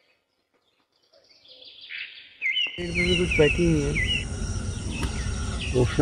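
Red-wattled lapwing calling: after a near-silent start, a quick series of about five sharp, rising notes. From about three seconds in, a steady outdoor hiss and low rumble come up beneath the calls.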